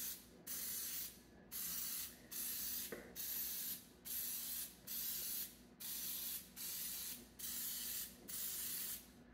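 Aerosol cooking spray hissing in about a dozen short squirts, one after another, as each cup of a 12-cup muffin tin is greased.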